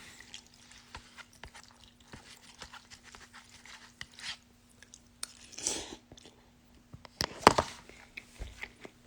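A person eating instant ramen close to the microphone: soft chewing and small mouth clicks. There is a louder, longer noise about five and a half seconds in and a sharp knock about seven and a half seconds in. A faint steady hum runs underneath.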